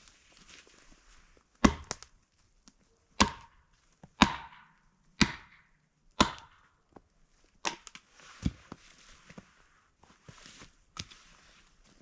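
A series of heavy, sharp strikes, eight in all, about a second apart, with the loudest in the first half; several leave a short ringing tail.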